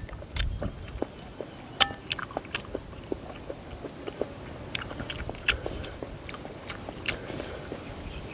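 A person chewing a mouthful of instant noodles, with many small wet mouth clicks. A metal spoon and chopsticks clink against a glass bowl, the two sharpest clinks about half a second and two seconds in.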